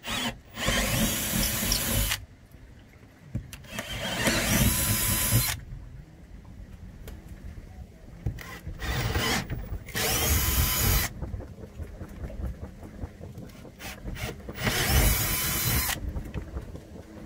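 Cordless drill with a 1/4 inch bit enlarging pilot holes through a pontoon's woven vinyl floor into the plywood deck, in four short bursts of a second or two each.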